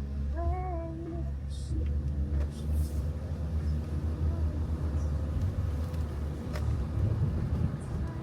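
Steady low rumble, with a short pitched tone about half a second in.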